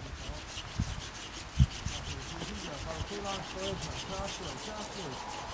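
Hand saw cutting through wood in quick, even rasping strokes, with two knocks early on, the louder one about one and a half seconds in.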